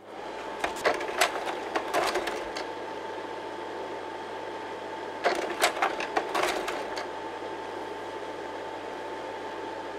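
A steady mechanical whirring hum with two bursts of rapid clicking, about a second in and again about five seconds in.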